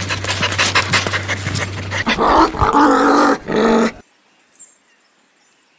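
A dog panting rapidly over a low steady hum, then a few louder short growls. The sound cuts off abruptly about four seconds in.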